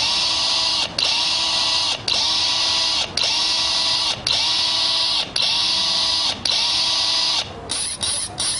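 Electronic dance music playing for a street dancer: a harsh buzzing synth sound repeated in blocks about a second long, with short breaks between them, breaking into quick stutters near the end.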